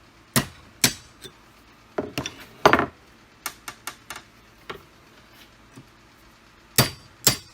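A tool clinking and knocking in about a dozen sharp, irregular strikes, some in quick clusters, while a plastic piece is worked out of a Jeep Wrangler JK's door.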